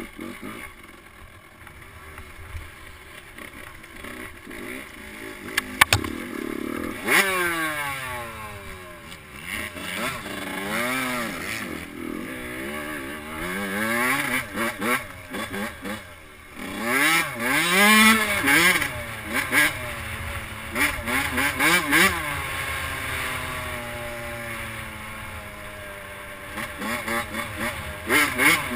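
Suzuki RM85 two-stroke dirt bike engine running under way, its pitch rising and falling over and over with throttle and gear changes. It runs quieter for the first several seconds, then revs harder from about seven seconds in, with a single sharp click just before that.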